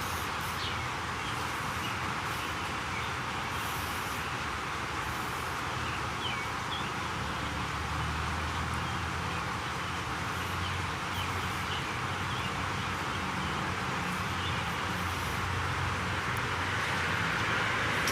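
Steady outdoor background noise with a low rumble, growing slightly louder near the end, and a few faint high chirps.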